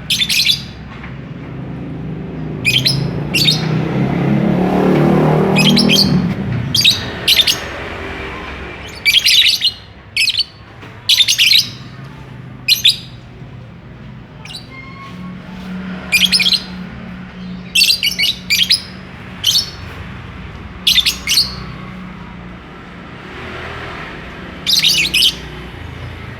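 Lovebirds giving short, sharp, shrill chirps, mostly in quick pairs or clusters every second or two. A low rumble swells and fades behind them in the first several seconds.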